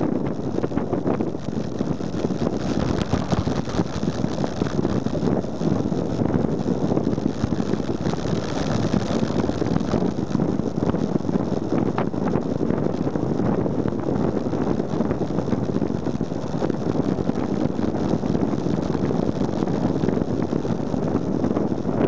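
Steady wind buffeting the microphone of a bicycle-mounted compact camera during a fast downhill descent.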